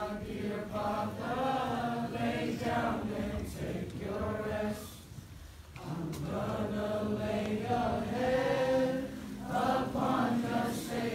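A large group of men and women singing together in chorus, in long held phrases with a short break about halfway through.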